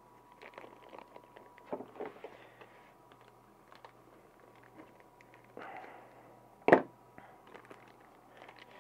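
Cardboard boxes and small parts being handled: light rustling and small clicks, with one sharp knock about two-thirds of the way through.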